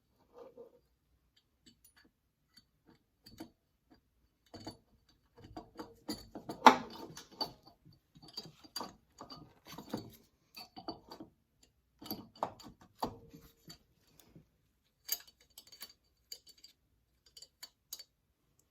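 Scattered light clicks, taps and small metallic knocks of hand work on a small engine's cylinder head as new rocker arms are fitted, with one sharper knock about a third of the way in.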